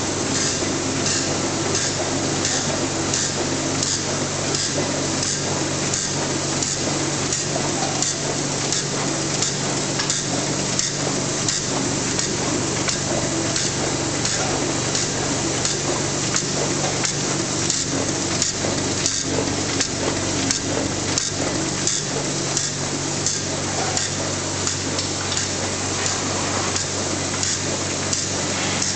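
Ryobi 522H two-colour sheet-fed offset printing press running: a steady low hum with a fast, even mechanical clatter.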